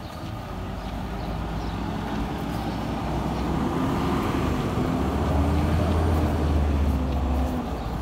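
City bus engine running as it passes close by: a low drone that grows louder over several seconds and falls away near the end, over a background of traffic.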